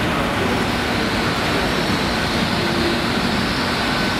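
A freight train's wagons rolling past at steady speed, a continuous even rumble of wheels on rail.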